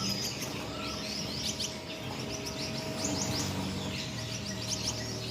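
A flock of Gouldian finches chirping, a constant stream of short, high, overlapping chirps, over a low steady hum.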